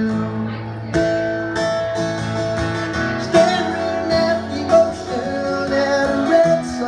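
Acoustic guitar strumming an instrumental break in a live trop-rock song, with long held melody notes over the chords.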